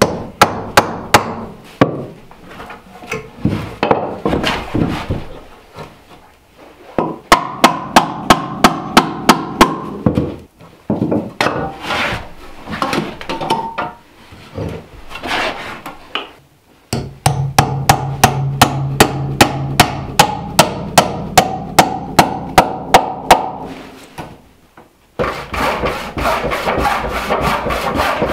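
Woodworking with hand tools: runs of quick, regular hammer blows on a wooden board, then a handsaw cutting a board with fast strokes near the end.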